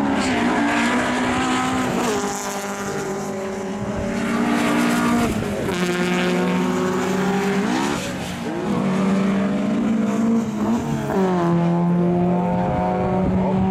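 Historic rallycross cars racing at full throttle, with several engines heard at once. The engines hold at high revs, and their pitch dips and climbs again every few seconds as they shift gear or lift for corners.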